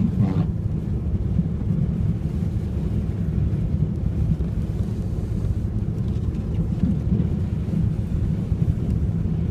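Steady low rumble of a car driving at about 35 mph, heard from inside the cabin.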